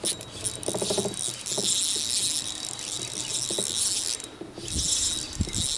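Spinning reel cranked to retrieve a topwater mouse lure on braided line: a jangly, whirring gear-and-line sound in stretches with short pauses. A couple of dull low thumps come near the end.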